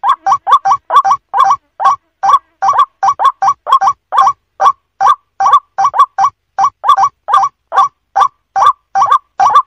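White-breasted waterhen (ruak-ruak) calling: a fast, unbroken run of short repeated notes, about three a second, some coming in quick pairs or triplets.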